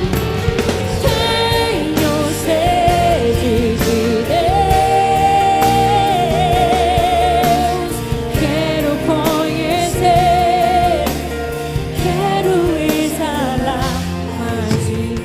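Live gospel worship song: a female lead vocalist sings long held notes with vibrato over a full band, with backing voices.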